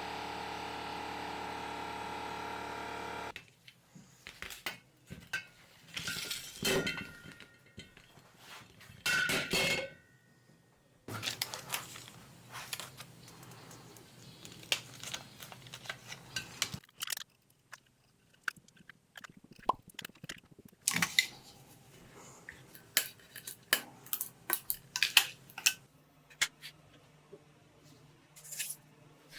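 A steady machine hum cuts off about three seconds in. Irregular clinks, taps and knocks of small metal parts being handled follow.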